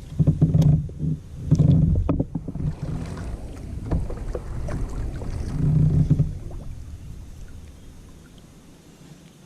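Fishing boat sounds: knocks and clatter on the hull, with a low hum that comes and goes for the first six seconds, then fading.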